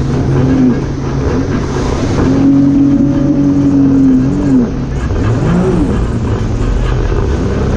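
Sea-Doo jet ski engine running at speed, its pitch rising and falling as the throttle is worked, held high and steady for a couple of seconds in the middle, then dropping and climbing again, over the rush of water spray.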